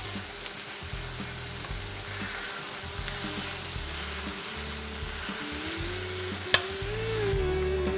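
Ground beef frying in oil in an enamelled cast-iron pan, sizzling steadily as it is stirred with a metal spoon to brown it. A single sharp click about six and a half seconds in.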